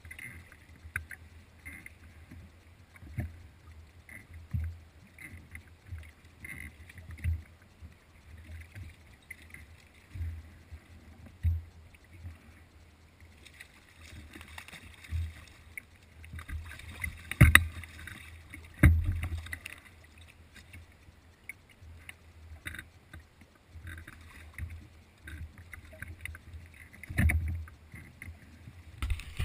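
Choppy water slapping against a pontoon boat's inflatable tubes in irregular low thumps, with splashing from a hooked sea trout thrashing at the surface; the loudest splashes come a little past halfway.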